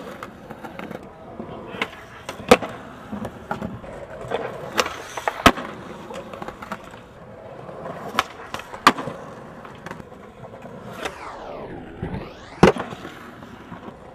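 Skateboard wheels rolling on concrete, cut by sharp clacks of the board popping and landing, about eight times. Near the end a sweep dips in pitch and rises again, just before the loudest clack.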